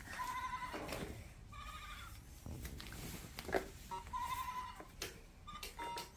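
Electronic toy tray of a baby walker playing short, steady electronic tones and sound effects, broken by a few clicks.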